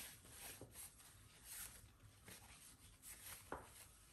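Faint, soft rustling of silk fabric being gathered and slid along as elastic is fed through the scrunchie tube with a bodkin threading tool, with a small tick about three and a half seconds in.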